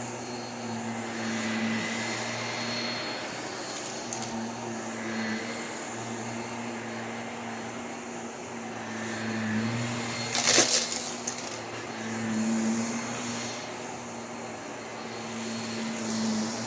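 Vacuum cleaner running steadily, its motor hum wavering slightly in pitch and loudness as it works across the floor. There is one sharp click about ten and a half seconds in.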